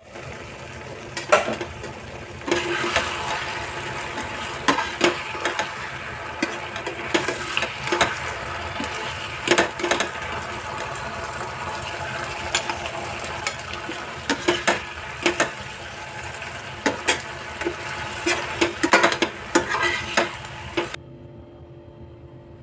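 A spoon stirring vegetable manchurian in a steel pan, clinking and scraping against the metal over a steady sizzle of the sauce. The sizzle and clinking stop suddenly near the end.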